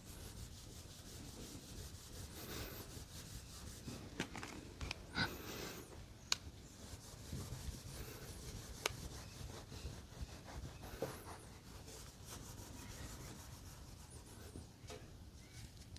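Faint rubbing of a cloth scrubbing over a chrome part, cleaning it up, with a few light clicks and taps scattered through.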